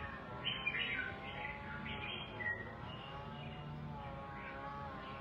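Red-whiskered bulbul in a cage chirping: a few short, high calls in roughly the first three seconds, then quieter.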